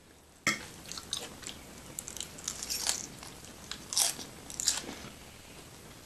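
Close-miked eating sounds: a run of crisp crunches and wet chewing that starts suddenly about half a second in, with the loudest crunches about four seconds in.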